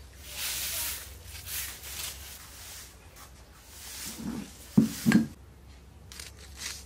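A country chicken clucking three times in quick succession about four to five seconds in, the middle cluck the loudest, after a stretch of rustling.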